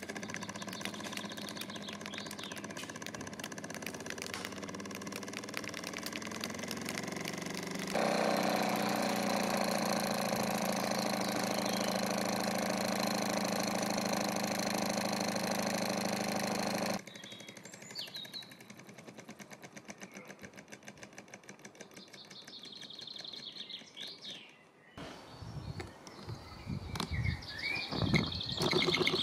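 A Mamod SP2 live-steam model engine running fast, its single oscillating cylinder giving a rapid, steady chuffing patter, louder for a stretch in the middle. Later on it is quieter, with birds chirping.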